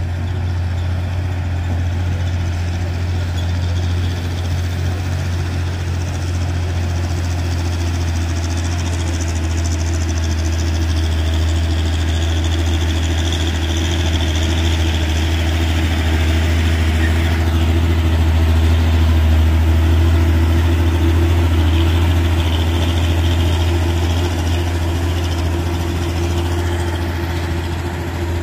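Heavy truck engine running steadily, a deep hum with road noise that grows louder to a peak about two-thirds of the way through and then eases off near the end.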